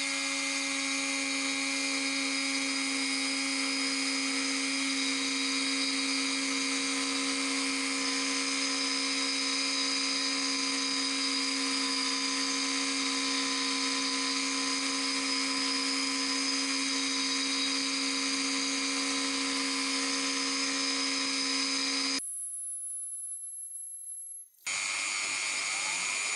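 Dremel rotary tool running steadily at about 15,000 RPM, a steady high-pitched whine, as its 60° V-bit mills a thread into a slowly turning beech dowel on the lathe. About 22 seconds in, the sound cuts to a quieter, fading hiss for about two seconds, then the steady whine comes back.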